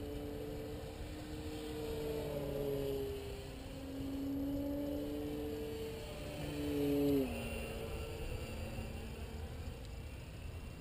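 Electric motor and propeller of a Dynam Waco RC biplane humming steadily overhead, with the pitch wavering slightly as it flies. About seven seconds in the hum swells, then quickly drops to a lower pitch and fades as the throttle comes back.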